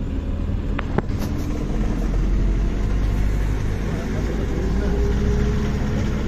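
Car driving: a steady low rumble of engine and road noise with an even engine hum, and a brief click about a second in.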